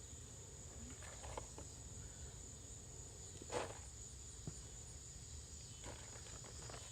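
Steady high-pitched trilling of insects, with a few soft scrapes and rustles of soil being dug by hand; the loudest scrape comes about halfway through.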